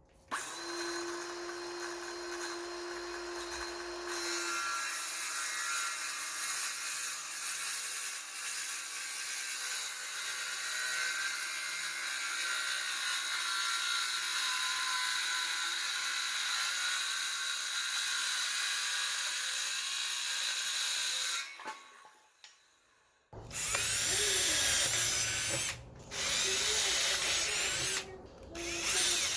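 Power tool running on workshop scrap material: one long continuous run of about twenty seconds, then after a short pause three shorter runs with brief stops between them.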